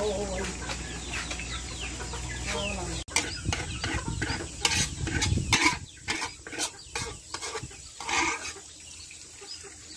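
Chickens clucking, with sharp metallic knocks and scrapes of a spatula against a wok from about three seconds in as noodles are scraped out into a basket.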